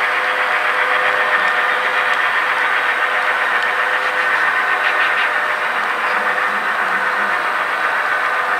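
Empty model-railroad coal hopper cars rolling past on the track: a steady rolling rumble and hum of metal wheels on rails, with a few faint clicks.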